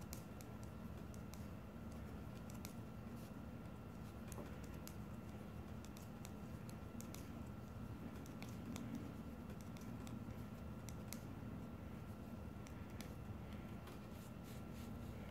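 Knitting needles clicking faintly and irregularly as a row of stitches is worked quickly, over a low steady hum.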